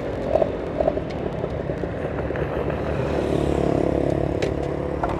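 Small underbone motorcycle's engine and exhaust running at low road speed as the bike rolls up and slows, with the exhaust picked up close on a lapel mic. Three short beeps come in the first second.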